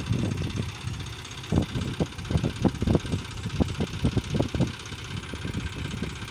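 Diesel tractor engine running at low speed, its rumble broken by many irregular low thuds.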